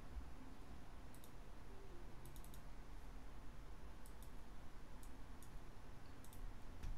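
Faint clicks of a computer mouse button, in small clusters of two or three about every second, over a low, steady background hum.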